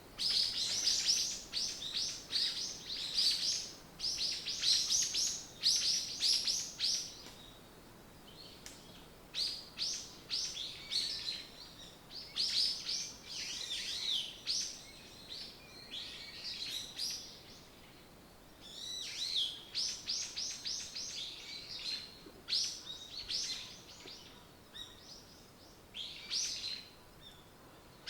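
Songbirds singing in a forest: phrases of quick, high repeated chirps, each lasting a second or two, with short pauses between them.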